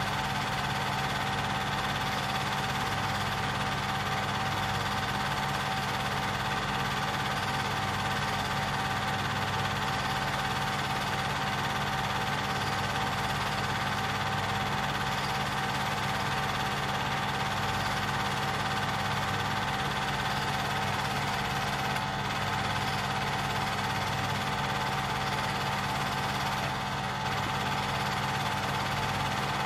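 Film projector running steadily: a constant motor hum and mechanical whir with no change in pace.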